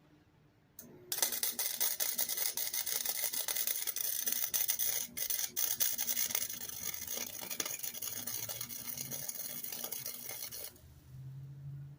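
MIG welder arc crackling steadily for about ten seconds as a brace is welded to the mower frame, with two short breaks near the middle. A low hum follows near the end.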